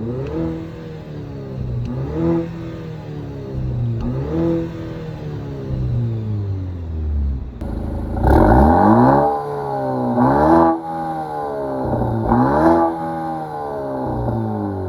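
Maserati Grecale GT's 2-litre inline-four engine in sport mode, blipped in short revs about every two seconds, each rising and then falling back to idle. The first few blips are heard from inside the cabin; from about halfway they come louder and sharper, as heard from outside the car.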